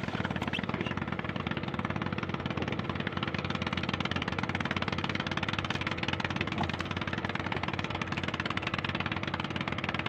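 Small wooden fishing boat's engine running steadily with a fast, even beat.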